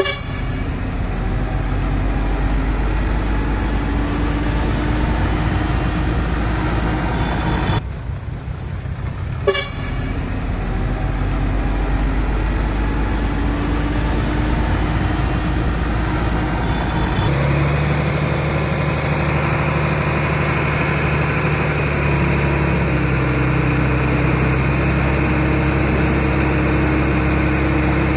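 Heavy diesel earthmoving machinery, a bulldozer and dump trucks, running steadily under load. The sound breaks off briefly about eight seconds in, and changes abruptly a little past halfway where one clip gives way to another.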